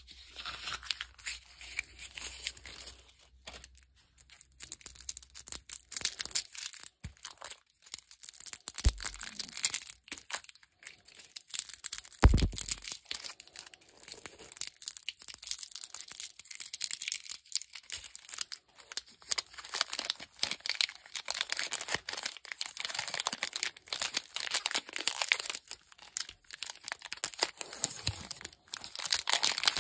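Cellophane and plastic candy wrappers crinkling and crackling as sweets are unwrapped by hand, in a continuous run of sharp crackles. A dull thump about twelve seconds in is the loudest moment.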